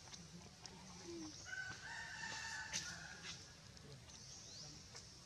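A rooster crowing once, a single held call of nearly two seconds in the middle, faint against a steady high hiss.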